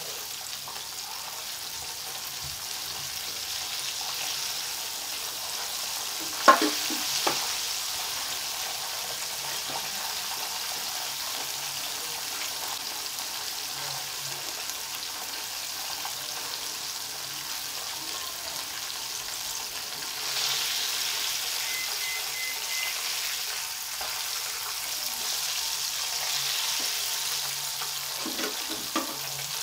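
Flour-coated chicken pieces deep-frying in hot oil in a wok, a steady sizzling crackle that swells louder twice in the second half. A metal skimmer knocks sharply against the pan a couple of times about six to seven seconds in, and again near the end.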